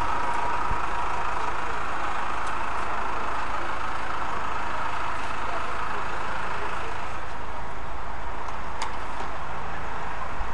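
Steady background noise of city street traffic: a constant rumble and hiss without breaks, with one light click late on.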